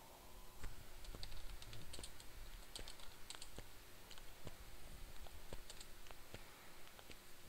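Typing on a computer keyboard: a run of faint, irregular key clicks.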